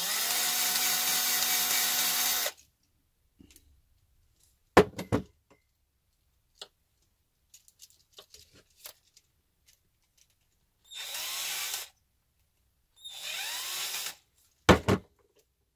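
Cordless drill-driver running, driving small screws into an RC truck's axle and leaf-spring assembly: one steady run of about two and a half seconds, then two shorter runs near the end. Sharp knocks fall between them, two of them loud, about five seconds in and just before the end.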